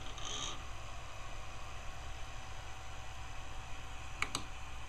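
Homemade electro-mechanical resonance motor running steadily, its pronged steel rotor spinning past a pulse-width-modulated coil: a steady hum with a low drone and a faint steady tone. Two sharp clicks come close together about four seconds in.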